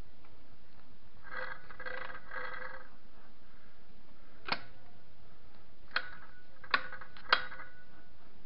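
Kawasaki VN1500 gearbox being shifted by hand at the shift drum. There is a short stretch of light metallic rattling, then four sharp metallic clicks with a brief ring over about three seconds, as the detent roller snaps into each gear position. The drum indexes cleanly through the gears.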